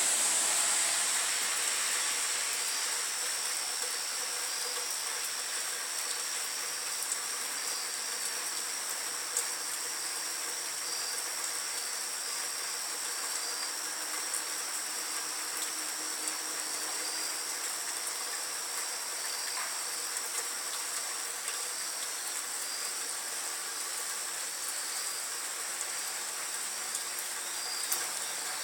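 Steady night rain with scattered drips, under a constant high-pitched insect drone with a faint pulsing note. A passing car's hiss fades out over the first few seconds.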